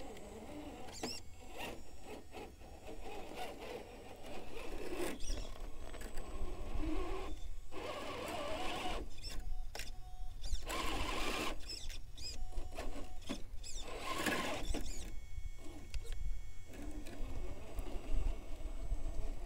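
The RC crawler's electric motor and geared drivetrain whine in stop-start bursts as the Axial SCX10 III Gladiator picks its way over sandstone ledges, with its tyres scraping on the rock.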